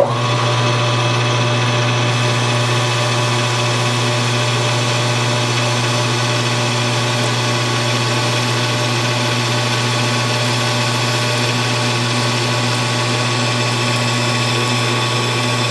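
Metal lathe switched on with a click, then running steadily with a strong low hum and a whine of gear tones, as the tool cuts a W1 tool steel rod held in the collet chuck.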